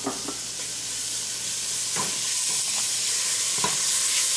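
Onion, spices and fresh garlic sizzling in hot oil in a stainless steel pot over high heat, the sizzle growing a little louder. A spatula stirs the mix, knocking against the pot a couple of times.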